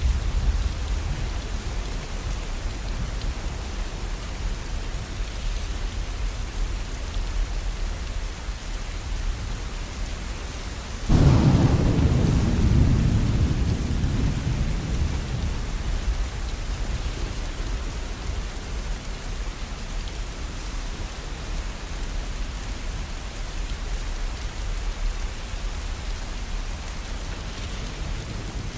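Steady rain, with a sudden clap of thunder about eleven seconds in that rumbles and fades away over several seconds.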